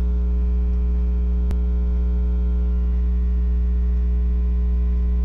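Steady electrical mains hum, a low drone with a ladder of higher overtones, with a single brief click about one and a half seconds in.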